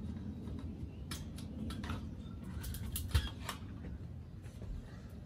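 Metal legs and brace of a Weber kettle grill clicking and rattling as a leg is worked into the bowl's leg socket, with one sharper knock about three seconds in.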